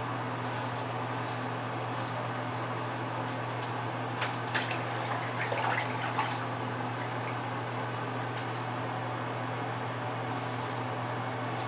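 Dorco Pace six-blade cartridge razor scraping through lathered stubble in short, scratchy strokes, with a few sharper clicks about four to six seconds in, over a steady low hum.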